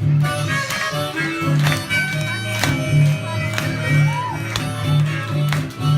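Upbeat instrumental music with a steady beat and a held reedy melody, and sharp claps about once a second as children clap along to the rhythm.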